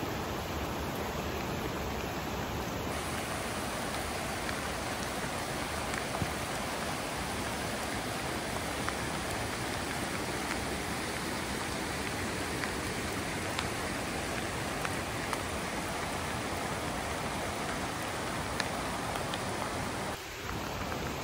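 Steady rain, with a few faint ticks of single drops.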